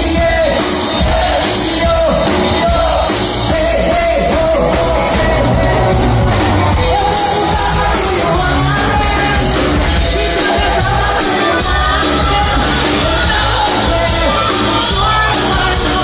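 A band playing a song with a lead singer, drums and amplified instruments, loud and steady throughout.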